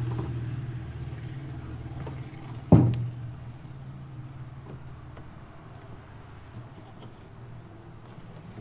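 A steady low hum that fades a little over the first second, with a single sharp knock about three seconds in, and a faint steady high-pitched whine underneath.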